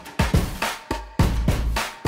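Intro music with a driving drum beat of sharp hits and a heavy bass that swells in about a second in.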